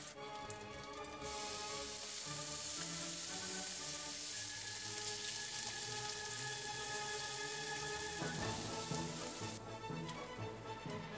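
Food sizzling in a hot frying pan, starting about a second in and stopping abruptly near the end, under background music.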